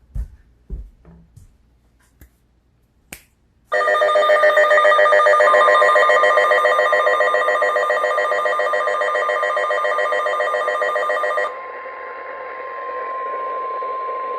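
A few light clicks, then about four seconds in a phone's emergency alert tone goes off: a loud, rapidly pulsing alarm for about eight seconds. Overlapping it from about five seconds in, a weather radio's steady single-pitch warning alarm tone sounds until the end, announcing a flash flood warning.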